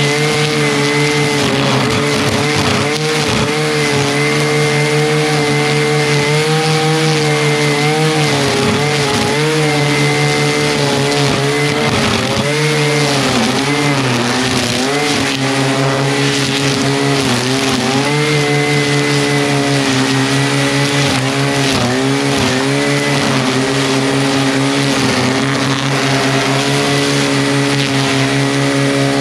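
Echo 2620T two-stroke string trimmer running at high throttle while cutting grass, its engine pitch dipping and recovering several times as the line bites into growth.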